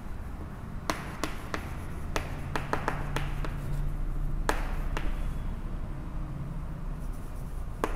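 Chalk tapping and scratching on a blackboard as words are written: irregular light clicks over a faint steady room hum.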